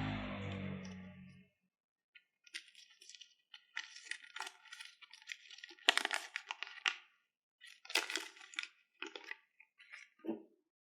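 Packaging of a Yale luggage padlock being handled: a run of sharp clicks and crinkles, the loudest about six seconds in, after a fading musical tone in the first second and a half.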